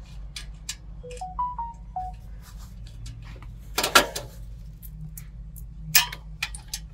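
Clicks and knocks of a generator's louvred metal alternator end cover being handled and fitted into place, with two sharper knocks about four and six seconds in.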